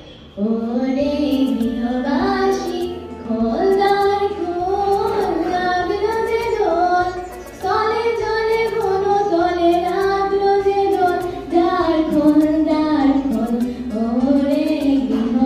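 A woman singing a slow melody into a microphone, with long held notes that slide between pitches, starting about half a second in.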